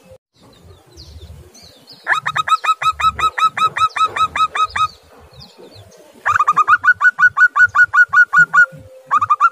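Zebra dove (perkutut) calling: three runs of rapid, staccato repeated notes, about five a second, each run lasting two to three seconds.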